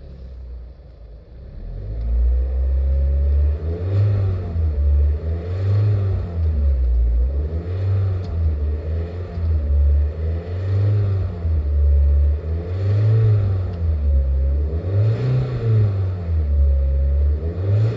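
A loud, low rumbling noise that swells and fades every second or two, with a fainter wavering tone above it.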